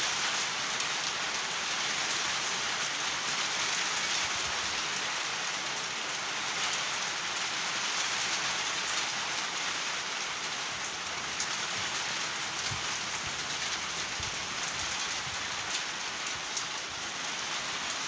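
Steady rain falling on trees, leaves and bare dirt ground: an even, continuous hiss with scattered drop ticks.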